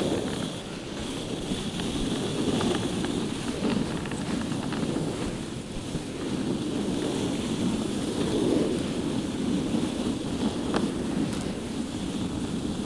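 Steady rushing noise of a dog sled in motion over snow: the runners sliding along the packed trail, with wind on the microphone, and a few faint ticks.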